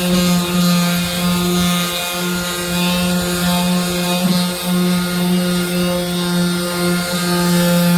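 Heat gun running with a steady, unbroken motor hum.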